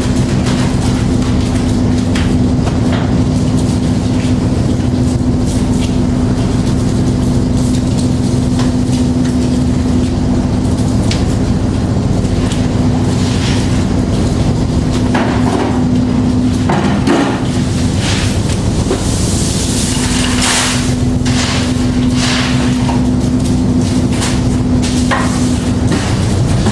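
Beam trawler's machinery running with a steady low hum, with scattered knocks and clanks and a few short hissing rushes of water or spray.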